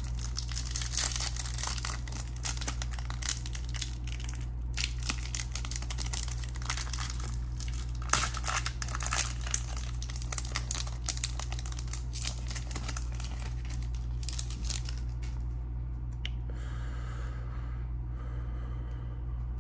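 Foil trading-card pack wrapper crinkling and tearing as it is opened by hand. The crinkling dies down about fifteen seconds in, leaving softer handling sounds.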